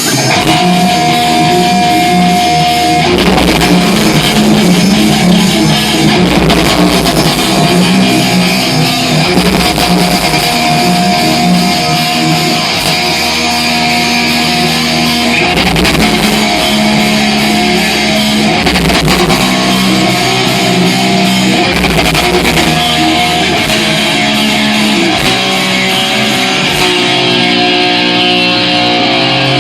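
Heavy metal band playing live: electric guitars holding a riff over drums, loud and steady, with heavy hits every few seconds.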